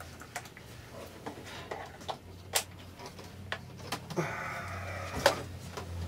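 A plug, cord and switch being handled as a homemade light box is plugged in and switched on: a series of light clicks and knocks, a short scraping rustle about four seconds in, then a sharper click. A low steady hum runs underneath.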